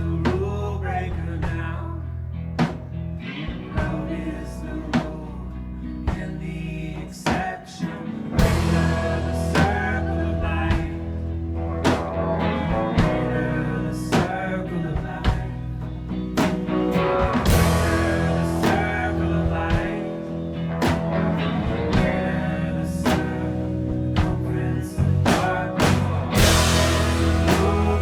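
Rock band playing live: drum kit keeping a steady beat under bass and guitars, in a passage with no sung words.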